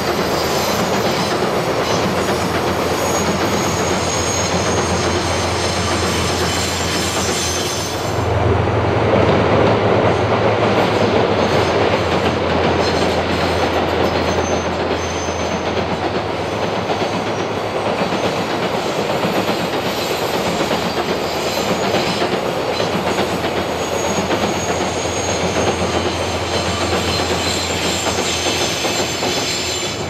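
A train running past, a continuous loud rumble and rattle of wheels on rails for the whole stretch. About eight seconds in the sound shifts abruptly, losing its highest hiss and growing heavier in the low end.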